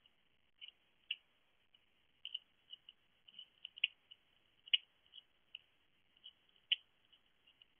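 Hedgehog eating and nosing around food bowls: faint, irregular small clicks and crunches, with a few sharper clicks scattered through.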